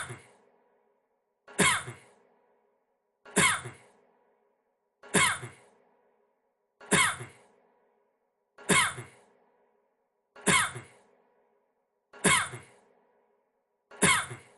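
A man's single short cough, repeated as the same cough about every 1.7 seconds, nine times over.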